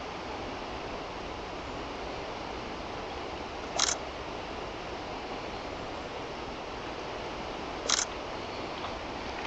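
Steady rushing of a high river current, with two short sharp clicks about four seconds apart.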